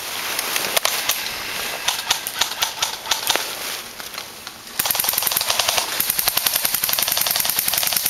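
Airsoft guns firing: scattered single shots at first, then about five seconds in a long, rapid full-auto burst that runs on without a break.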